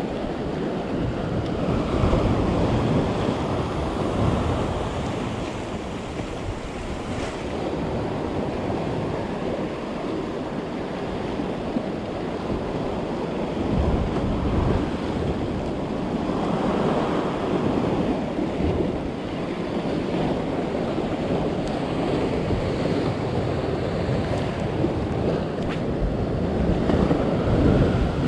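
Sea surf washing onto the shore, swelling and easing every several seconds, with wind rumbling on the microphone.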